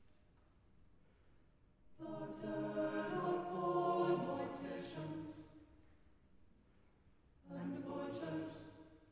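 Mixed chamber choir singing without accompaniment: a phrase of held chords starting about two seconds in, then a shorter phrase near the end, with a pause in between.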